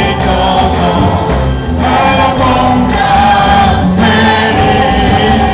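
Youth orchestra and choir performing, with loud sustained sung chords over the instruments.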